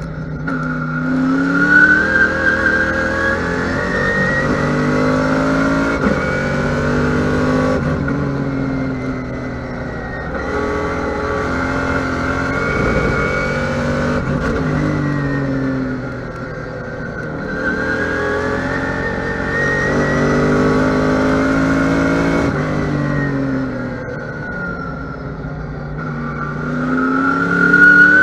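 Trans-Am TA2 Camaro race car's V8 heard from inside the cockpit at racing speed. It climbs in pitch under hard acceleration and drops back as the driver lifts and brakes, about four times over.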